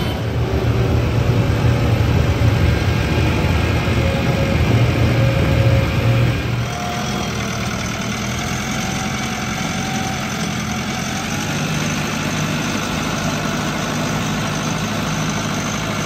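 JCB 3DX backhoe loader's diesel engine running with a deep, steady drone. About six seconds in the sound changes to a lighter engine note with a faint high whine as the machine drives with its loader bucket raised.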